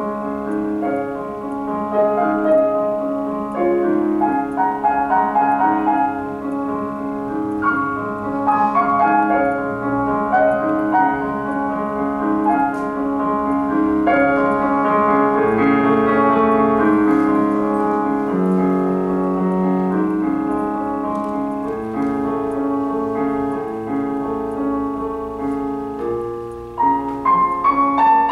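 Solo piano music played on a digital piano: a melody over held chords. Near the end it drops briefly, then a new, louder phrase begins higher up.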